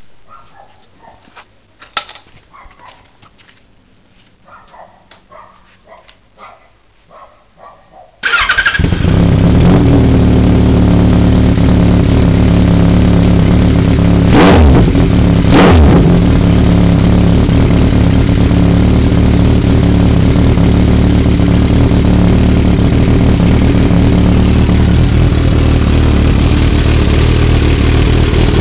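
Kawasaki ZRX1200R inline-four motorcycle engine with the stock silencer removed, catalyst still in the header pipe: after a few faint clicks it starts about eight seconds in and idles loudly, revved briefly twice in the middle.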